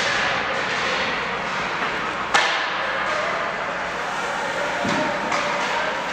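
Ice hockey game noise in an arena: a steady wash of skating and rink noise, with one sharp knock of a hard impact about two seconds in and a couple of lighter knocks near the end.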